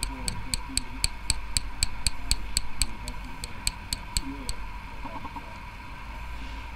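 Light, rapid tapping with a small tool on the top post of a rebuilt bottom coil head, driving the post into the head. About four sharp ticks a second for roughly four and a half seconds, then it stops.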